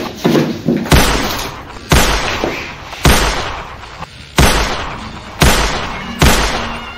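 Pistol shots fired one after another, about six in six seconds, each a sharp crack with a fading ring.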